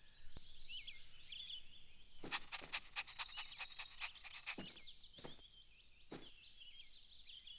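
Faint outdoor ambience of small birds chirping, with a handful of short sharp sounds near the middle, a cluster of quick ones followed by single ones.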